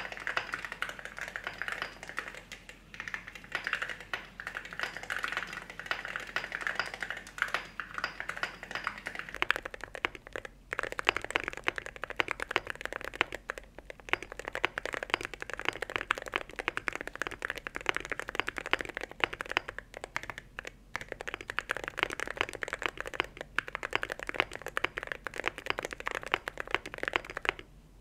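Typing on a KBDFans Margo mechanical keyboard with pre-lubed Gateron Oil King linear switches and Cerakey ceramic keycaps: a fast, steady stream of keystrokes that breaks off briefly twice and stops just before the end.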